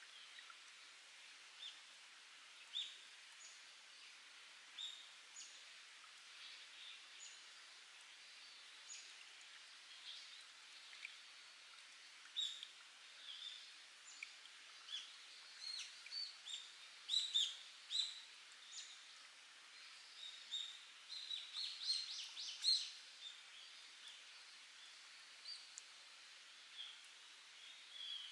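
Wild birds chirping and calling in many short, separate notes over a faint, steady trickle of spring water; the calls come thickest past the middle, with a quick run of repeated notes.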